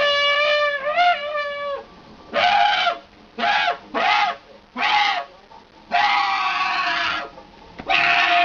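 A person making silly vocal noises: a series of about six strained, pitched cries. The first is long and wavers in pitch, then come short cries about a second apart, and near the end a longer, hoarser one.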